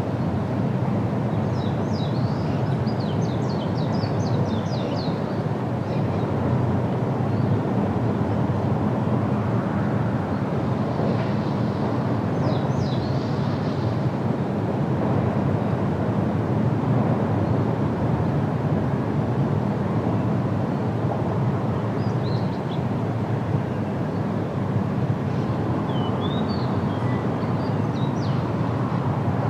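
Outdoor field ambience: a steady low rumble, with small birds chirping in quick runs of short calls a few times, about a second in, around twelve seconds, and near the end.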